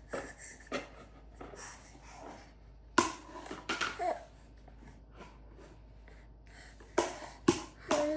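Baby babbling and giggling in short bursts, with a few sharp smacks, about three seconds in and twice near the end.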